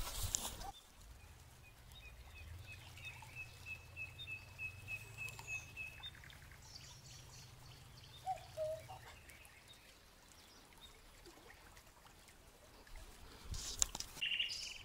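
A small bird calling in a run of short, evenly spaced high notes for a few seconds, over a faint low wind rumble. There is brushing noise through grass at the start and again near the end.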